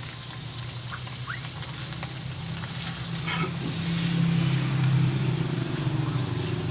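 Ground spices and garlic frying in hot oil in a pan, a steady soft sizzle with faint crackles. Under it a low engine hum swells about three seconds in, is loudest around four to five seconds, then eases off.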